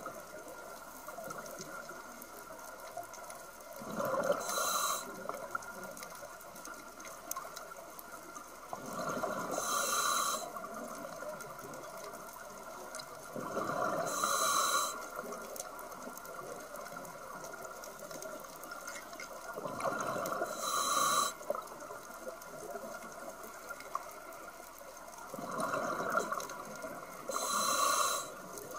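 A scuba diver breathing through a regulator underwater: a slow cycle of rushing, bubbling exhales and hissing inhales, about five breaths, one every five to six seconds.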